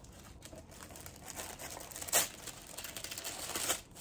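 White paper gift wrapping crinkling and rustling as it is pulled open by hand, with one louder crackle about two seconds in.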